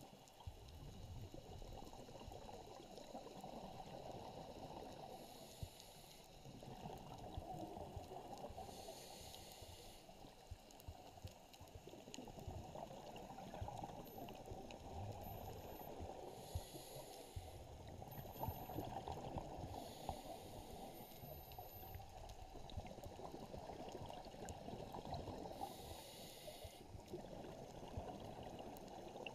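Muffled underwater rumble heard through an action camera's waterproof housing, with a short high hiss of exhaled scuba-regulator bubbles every few seconds.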